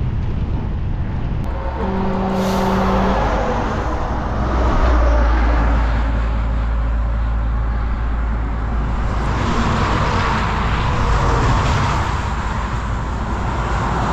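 Strong wind rumbling on the microphone while motor traffic passes close by on the road, swelling twice as vehicles go past; a short steady pitched tone, like a horn, sounds about two seconds in.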